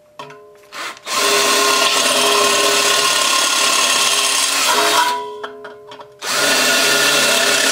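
Electric hand drill boring quarter-inch holes through welded sheet metal. The drill runs with a steady whine for about four seconds, stops briefly about five seconds in, then starts again.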